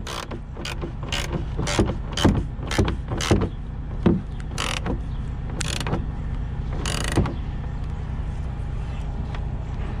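Screws being turned by hand with a screwdriver into a truck's turn-signal lamp housing. It makes a run of clicks and creaks about two a second for the first few seconds, then a few more spaced out, over a steady low hum.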